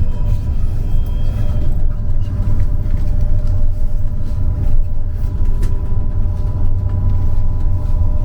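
Trolleybus on the move: a steady low road rumble with a constant electric whine from the traction drive.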